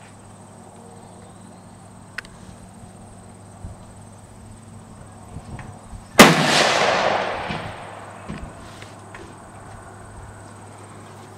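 A single AR-15 rifle shot about six seconds in, its report echoing and dying away over a second or so. A faint click comes a couple of seconds in.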